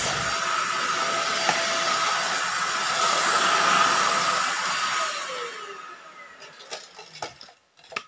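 Deerma DX700 corded stick vacuum running with a steady whine as its swivel floor brush is pushed along. About five seconds in the motor winds down with a falling tone, followed by a few light clicks.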